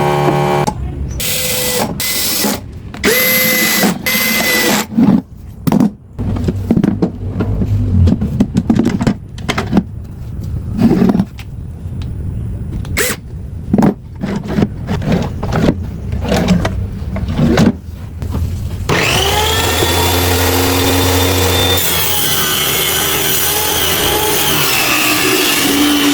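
Workshop tool sounds: a run of irregular sharp knocks and taps, some with a brief ring. About three-quarters of the way in, a power tool starts running steadily.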